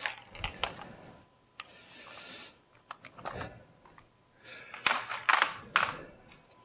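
Small metal Allen keys clinking and rattling as they are handled and sorted through: scattered sharp clicks, then a louder burst of jangling about five seconds in.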